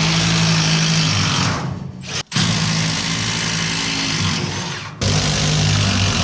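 A power tool running loud and steady, with a low hum under it. It cuts out and starts again abruptly about two seconds in and again about five seconds in.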